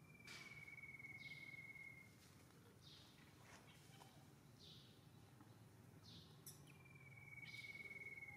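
Faint forest ambience of birds: short high calls repeating about every second and a half, and a long even trill heard at the start and again near the end.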